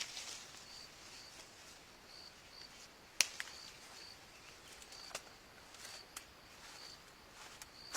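Outdoor rural ambience: a small creature's short high chirps at one pitch, mostly in pairs and repeating about once a second, with a few sharp clicks, the loudest about three seconds in.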